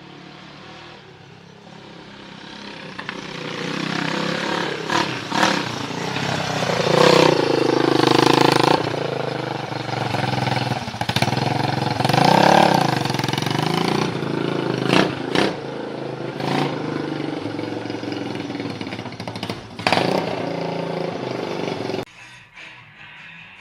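Honda three-wheeler engine running and being revved twice, with the pitch swelling up and back down each time, along with a few sharp clicks. It stops abruptly near the end.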